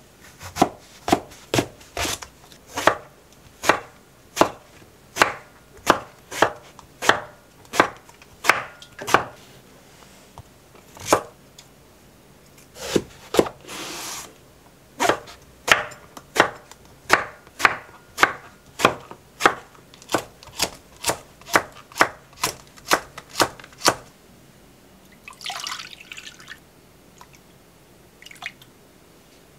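Kitchen knife chopping eggplant into chunks on a wooden cutting board: a long run of sharp knocks, about two a second, as the blade hits the board. The chopping stops near the end, followed by a short rustling noise and one last light knock.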